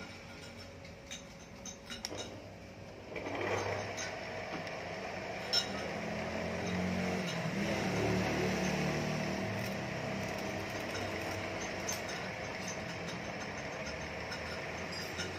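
A few light metal clinks as the lathe's tool post is handled. About three seconds in, the BV20 bench lathe starts and runs with a steady hum and a steady whine, its chuck turning a white plastic bar.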